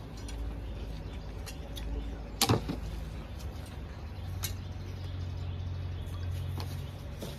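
Scattered sharp knocks of a metal snake hook striking loose bricks and stones while a cobra is pulled out of the rubble, the loudest a single hard knock about two and a half seconds in. A low steady hum runs underneath.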